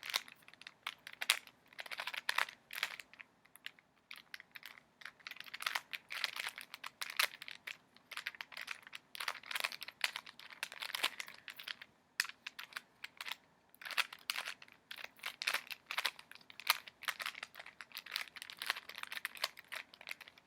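Rubik's Cube layers being turned quickly by hand, plastic clicking and clattering in irregular bursts while the first face is solved.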